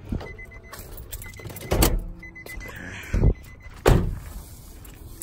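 Knocks and thumps from a Nissan Maxima's driver door and hood release as the hood is popped, three in all, the loudest near the end. A faint high tone sounds twice in between.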